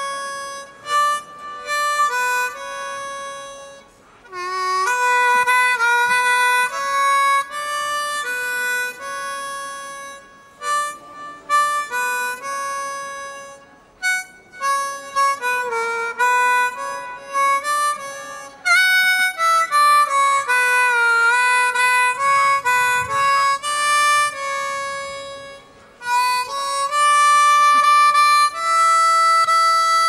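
Solo blues harmonica played cupped against a vocal microphone: held chords of several notes at once, some notes bent downward, in phrases broken by short pauses.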